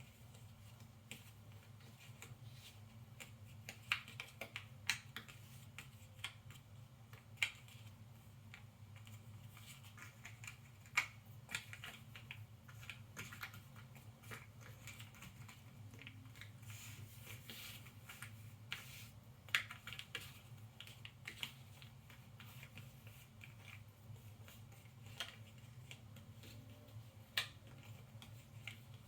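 Cardboard jigsaw puzzle pieces being handled on a table: scattered sharp clicks and taps as pieces are picked up, set down and pressed into place, with brief scraping rustles, over a steady low hum.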